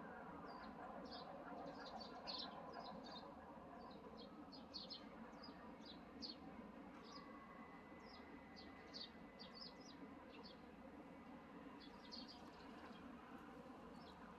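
Small birds chirping: many short, high chirps in quick irregular runs throughout, faint over a steady low background hum.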